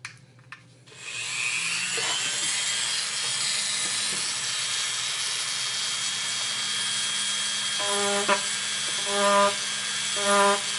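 Small Dremel rotary tool spinning up about a second in and running with a steady high whine. Near the end its bit grinds three times in short buzzing bursts against the inside of an acrylic pipe stem, roughening the bore so epoxy can grip.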